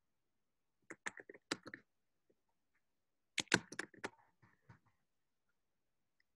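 Typing on a computer keyboard: two quick runs of keystrokes, one about a second in and one a little after three seconds.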